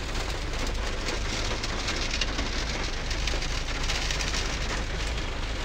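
Rain pattering steadily on a car's roof and windshield, heard from inside the car.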